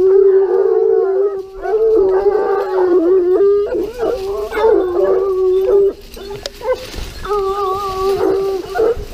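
A pack of Gascon Saintongeois hounds baying on wild boar: several long, drawn-out bays overlapping one another, thinning briefly about six seconds in before picking up again.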